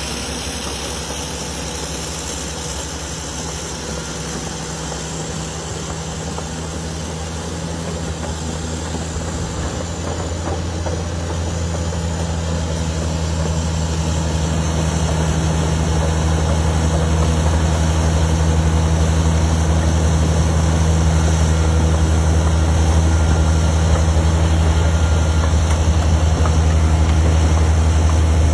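Backhoe loader's diesel engine running steadily with a low hum, growing louder over the first half and then holding steady.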